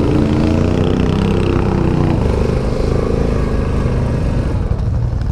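ATV engine running steadily while riding, a loud even drone whose tone softens a couple of seconds in.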